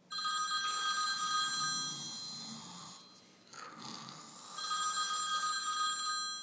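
Telephone ringing twice, each ring a steady multi-tone sound about two seconds long.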